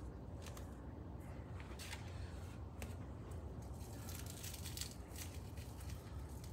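Faint handling noise from a homemade cardboard spiral notebook being turned over in the hands: a few soft clicks and rustles over a low steady hum.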